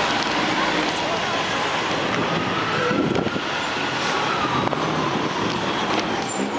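Steady street traffic noise, a dense even rush, with a faint tone that slowly rises and then falls through the middle.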